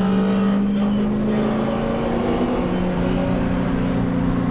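VT Commodore's LS1 5.7-litre V8 running at steady revs on track, heard from inside the car. Its pitch holds nearly level, rising slightly partway through.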